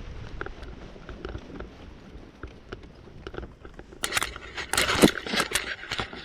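Low wind rumble on the microphone, then from about four seconds in a run of sharp rustles, clicks and scrapes as the paraglider's gear and lines are handled.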